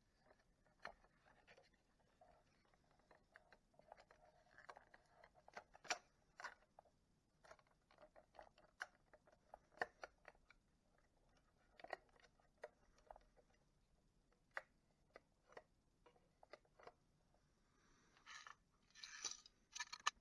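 Faint, scattered clicks and taps of a Craig W460 car radio's plastic front panel being handled and pressed onto its metal chassis by hand, with a short scraping rustle near the end.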